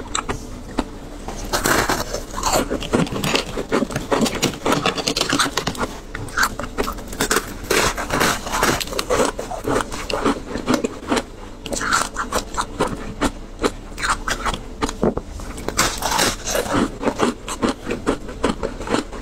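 Biting and crunching through a thin slab of frozen shaved ice topped with passion fruit pulp, with a steady run of sharp, irregular cracks as the ice breaks and is chewed.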